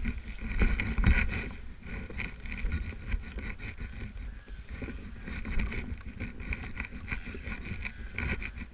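Wind buffeting a helmet-mounted camera microphone in uneven gusts, over a snowmobile engine running.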